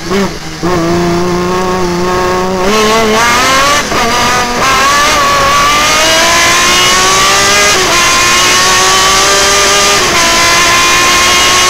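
Breda BMW hillclimb sports-prototype engine heard on board. It holds low, steady revs at first, then accelerates hard with its pitch rising, dipping briefly at several upshifts before climbing again.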